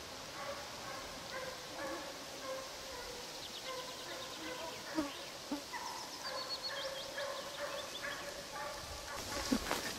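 Russian hounds giving tongue on a trail: a faint, continuous run of repeated yelping bays. A small bird sings a short descending trill about halfway through.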